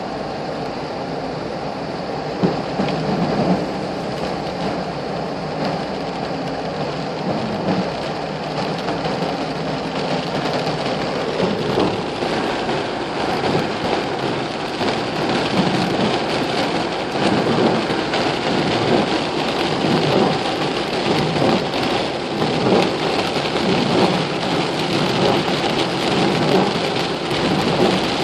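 Steady rain falling, a dense hiss with many single drops ticking, growing a little heavier about a third of the way through.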